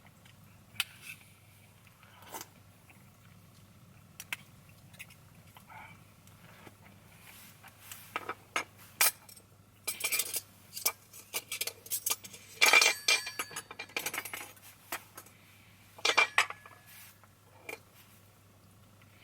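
Metal cookware and utensils being handled: scattered clinks, taps and scrapes, some with a short metallic ring. They come thickest in the middle, with the loudest clatter about two-thirds of the way through.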